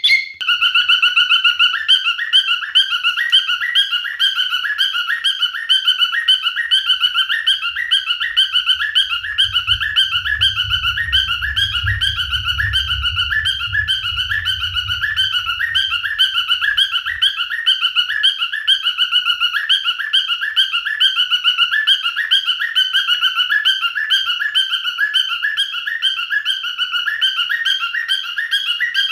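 Male cockatiel chirping, a fast, unbroken run of short repeated calls.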